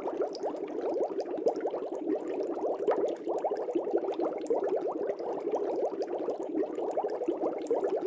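Aquarium air bubbles rising through water in a steady stream, a continuous bubbling made of many quick blips that each rise slightly in pitch.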